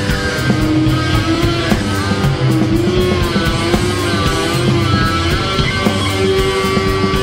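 Instrumental rock music: electric guitar holding sustained notes that bend in pitch, over bass and drums with steady cymbal strokes.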